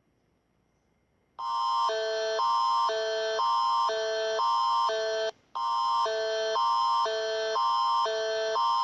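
Canadian Alert Ready emergency attention signal: two electronic chords alternating about every half second, a higher pair near 1 kHz and a lower pair, starting about a second and a half in, with a brief break about halfway through. It is the attention tone that precedes a civil emergency alert broadcast.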